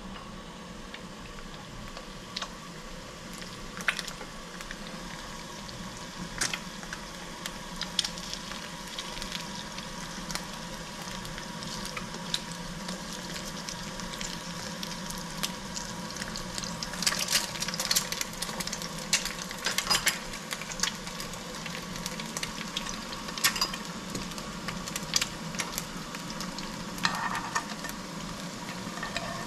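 Hot oil sizzling and crackling in a frying pan as an egg fries, growing denser and louder over the stretch, with sharp clicks and taps of a utensil in the pan.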